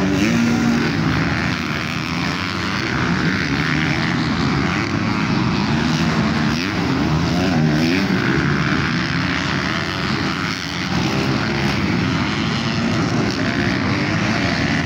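Several motocross bikes' engines revving, their overlapping engine notes rising and falling as the riders work the throttle around the dirt track.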